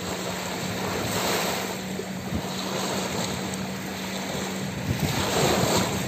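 Small Black Sea waves breaking and washing up over a shore of pebbles and shells, swelling and easing, with a bigger, louder wash about five seconds in. A faint steady hum underneath stops about five seconds in.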